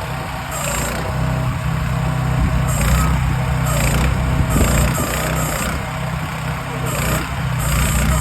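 Excavator engine running steadily at a low idle.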